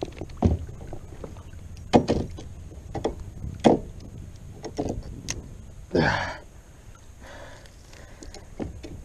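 Hollow knocks and clunks on a plastic kayak hull as a bass is landed by hand, with a brief splash about six seconds in as the fish comes up out of the water.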